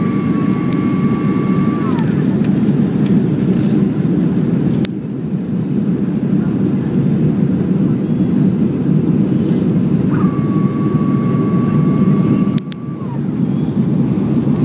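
Boeing 737-400 cabin noise on approach: the steady rumble of the engines and airflow heard from a seat by the wing. Twice, a thin steady whine holds for about three seconds and then sags in pitch as it stops.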